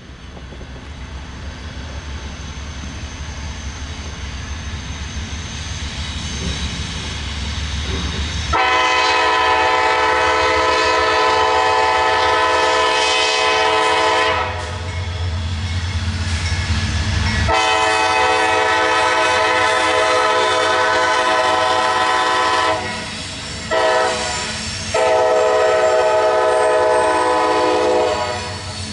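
CSX intermodal train's diesel locomotives approaching with a rising rumble, then the lead locomotive's multi-note air horn sounding the grade-crossing signal from about eight seconds in: two long blasts, one short, and a final long blast.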